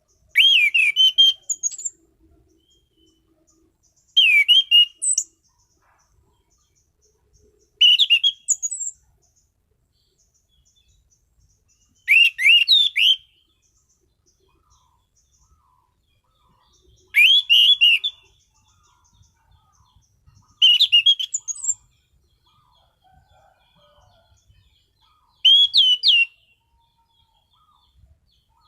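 Anis cendana (orange-banded thrush) singing: seven loud, short whistled song phrases of about a second each, one every three to five seconds, with faint softer chirps between them.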